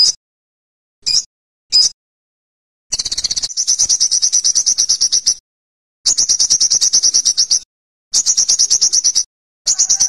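Olive-backed sunbird calling: three short, high single chips in the first two seconds, then four fast, high trills of one to two and a half seconds each, separated by brief silent gaps.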